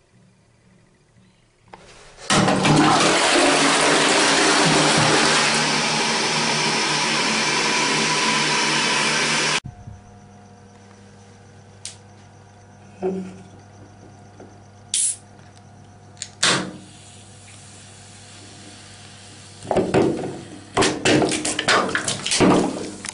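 Loud rushing water for about seven seconds, cutting off abruptly. Then a low steady hum with a few scattered knocks, and a flurry of clattering knocks near the end.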